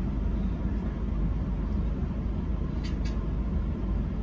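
A car's engine idling: a steady low rumble with nothing else standing out.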